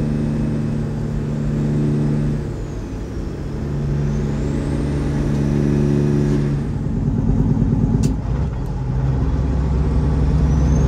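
Semi truck's diesel engine running while driving, its pitch dropping about two seconds in and its sound changing again a little past halfway.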